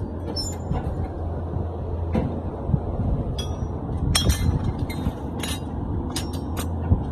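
Steady low hum of a pipe clamp forming machine running, with scattered sharp metallic clinks of bent steel flat-bar clamps being handled, most of them past the middle.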